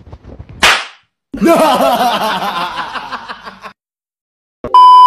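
A short hiss, then a person laughing for about two seconds, then a steady beep lasting about a second near the end.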